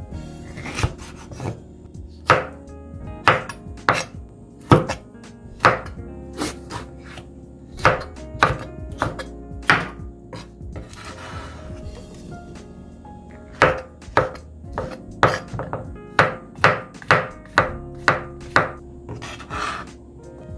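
Kitchen knife chopping food on a cutting board: separate sharp knocks, about one to two a second, pausing for a few seconds midway. Soft background music plays underneath.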